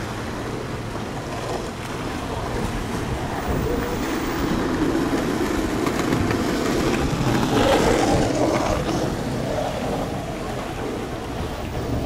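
Wind rushing over the microphone along with sea noise, swelling and falling, with the strongest gust about two-thirds of the way through.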